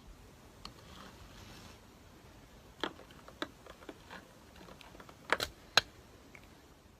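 A few faint, irregular clicks and taps over quiet room noise, the loudest two close together near the end.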